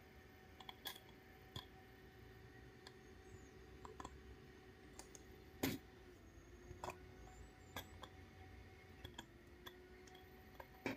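Faint, scattered clicks and taps of hard plastic RC car parts, a suspension arm, its metal hinge pin and the gearbox housing, being handled and snapped into place, with one louder knock about halfway through. A faint steady hum lies underneath.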